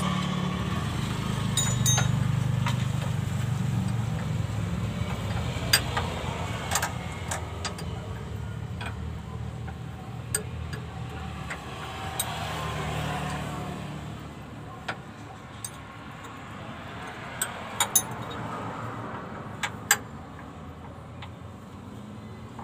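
Wrench clinking against metal fittings under a truck as a connection is tightened, with sharp clicks scattered throughout. A low vehicle engine hum runs underneath and fades out about halfway.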